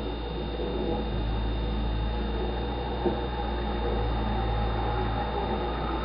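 Plow truck's engine running, heard through window glass as a steady low rumble that strengthens about a second in.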